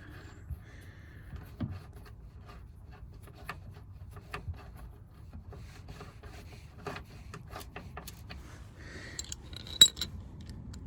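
Scattered small metallic clicks and scrapes of a hand tool working the door lock's retaining screws inside a car door, with one sharper click near the end.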